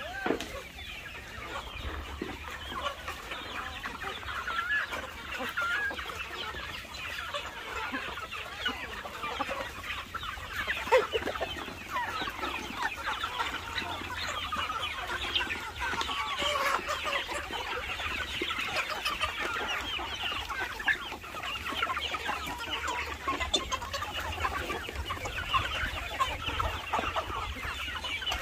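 A large flock of chickens clucking all at once, many short overlapping calls, as the birds crowd in to be fed.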